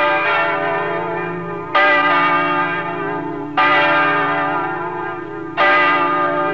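A church bell rung by its rope, tolling three times about two seconds apart, each strike ringing on into the next. It is tolled in mourning for a death.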